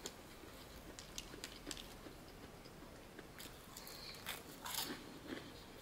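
Crispy fried chicken being pulled apart and bitten, with chewing: scattered crackles of the breaded crust, bunched most thickly about three and a half to five seconds in.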